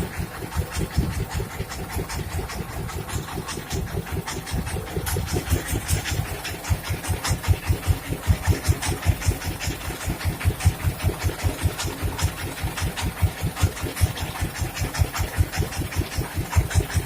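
A boat engine running steadily, with a low, even thumping of about five beats a second.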